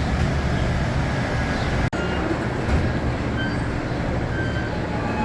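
Train running along the track: a steady low rumble of wheels and cars, with short high squeaks here and there. The sound cuts out for an instant about two seconds in.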